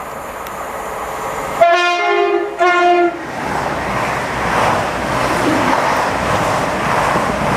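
Class 69 diesel locomotive approaching, giving two short blasts on its horn, then the rumble of the train running past the platform.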